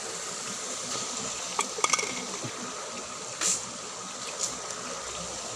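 Steady hiss of water running in a small ditch, with a few sharp clicks about two seconds in and a short rushing burst about three and a half seconds in.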